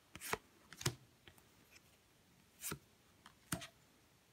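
Stiff board game cards being slid and flipped through in the hands: a few short card snaps and rustles, spaced out, with fainter ticks between.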